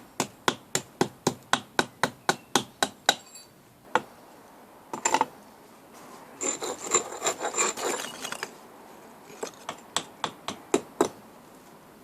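A brick hammer striking a plugging chisel in quick, even taps, about three or four a second, chiselling old mortar out of brick joints. Partway through, the taps give way to a couple of seconds of scraping with a thin metallic ring, then a few more taps follow.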